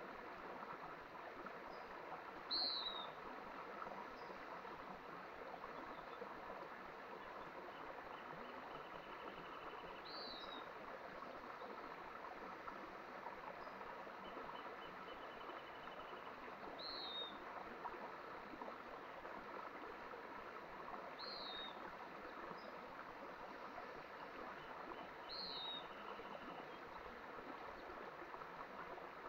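Mountain stream running steadily. Over it a bird gives a short, high, falling call five times, several seconds apart, and a faint rapid trill sounds now and then.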